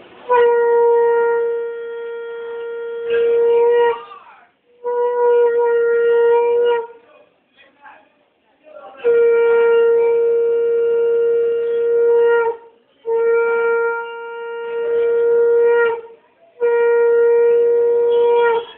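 Conch shell (shankha) blown in the ritual manner: five long blasts, each a steady, unwavering note with short breaks between them.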